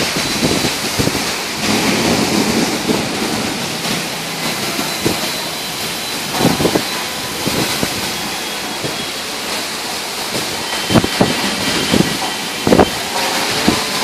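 Heavy rain pouring in strong wind, a dense steady hiss. A few short loud knocks come about halfway through and again near the end.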